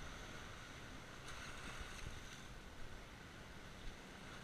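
Small waves washing in over rocks: a steady hiss of surf, with one wave surging louder partway through and a couple of faint knocks near the end.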